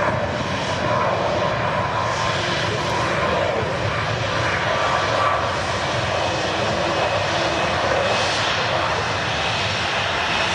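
Jet engines of a Boeing 737 airliner, a steady rushing noise that holds at an even level throughout, with a faint whine early on.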